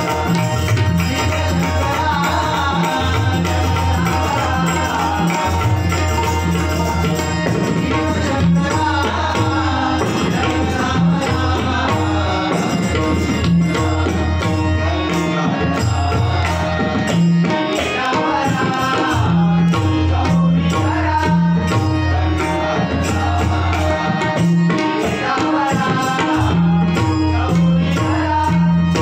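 Live bhajan music: a tabla played in a steady rhythm under a wavering melodic line.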